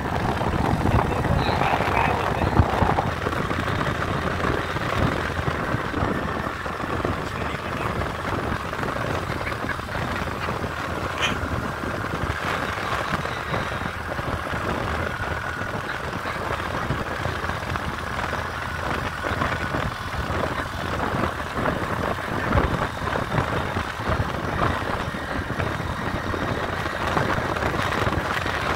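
Motorcycle running steadily while being ridden, with wind rushing over the microphone.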